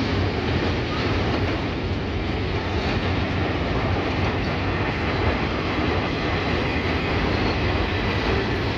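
Double-stack container well cars of a freight train rolling past at steady speed: a continuous low rumble of steel wheels on rail.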